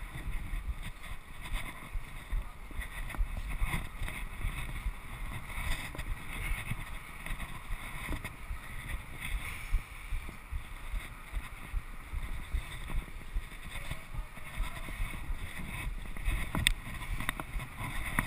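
Wind gusting across an action-camera microphone, an uneven low rumble that rises and falls, with a couple of sharp clicks near the end.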